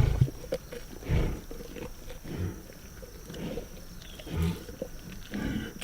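Lions feeding on a zebra carcass, giving low, rough growls about once a second, with short sharp cracks and clicks from the feeding in between.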